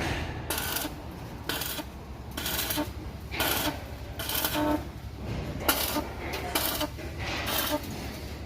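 Metal tools and parts being handled in a truck repair workshop: irregular clinks, knocks and scrapes, some with a short metallic ring.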